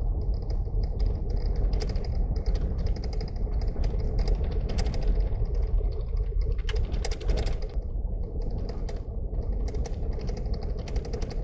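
Car driving, heard from inside the cabin: a steady low road rumble with a fast, clicking rattle over it.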